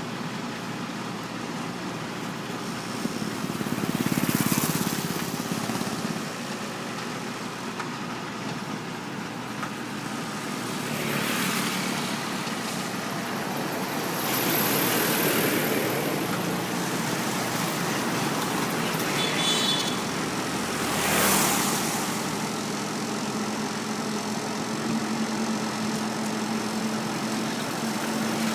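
Motor vehicle engine running steadily, with a steady low hum setting in about two-thirds of the way through. Several swells of passing traffic rise and fade.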